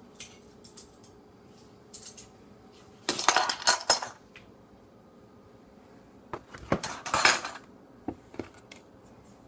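Metal teaspoon stirring and clinking against a cup, dissolving borax in water, in two spells of rattling scrapes about three seconds in and again near seven seconds.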